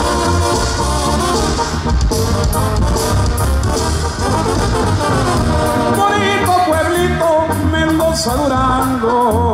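Background music: a Mexican song with brass and a voice singing, louder in the second half.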